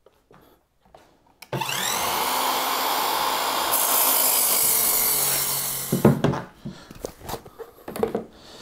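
Trend MS184S2 mitre saw motor starting with a rising whine about a second and a half in, the blade cutting through timber, then the motor winding down about six seconds in. A few knocks follow.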